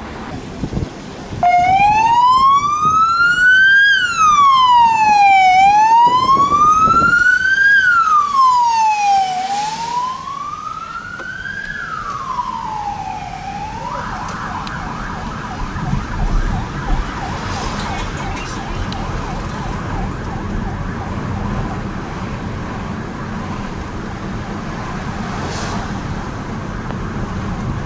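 Emergency vehicle siren wailing, gliding slowly up and down in pitch, about one rise and fall every four seconds. About halfway through it gives way to a fast warbling siren held near one pitch, over steady engine and road noise inside a car following an ambulance.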